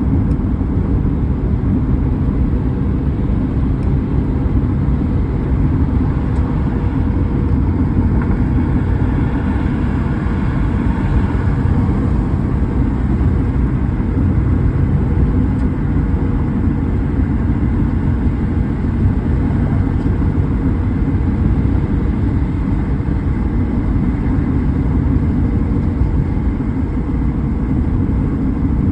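Steady low rumble of a car driving, its tyre and engine noise running evenly, with a faint, brief swell in the higher hiss about ten seconds in.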